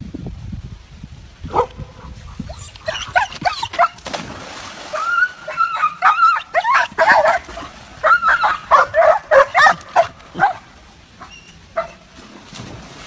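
Dogs yipping and whining excitedly in quick runs of short, high, bending calls, which thin out near the end.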